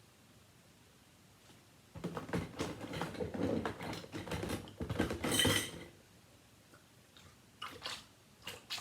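Small plastic fidget toys being handled and rummaged through: about four seconds of clattering clicks and rustling, then a few single clicks near the end.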